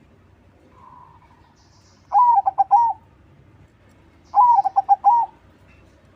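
Perkutut crossing (crossbred zebra dove) singing: a faint short coo about a second in, then two full song phrases, each a quick run of rolling coo notes lasting under a second, the second about two seconds after the first.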